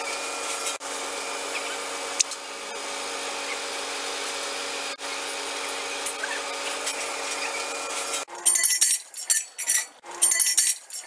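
A steady mechanical whir with a constant hum. About eight seconds in it cuts off suddenly, giving way to a series of sharp, irregular metallic clinks and clatters.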